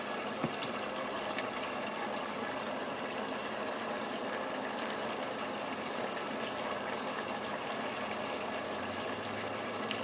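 Onion-and-honey sauce bubbling hard in a nonstick pot as it reduces to thicken: a steady simmering hiss, with a few faint clicks from a spoon.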